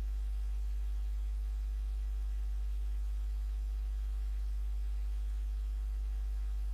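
Steady low electrical hum, like mains hum picked up in the recording, with a few faint higher steady tones above it and no change throughout.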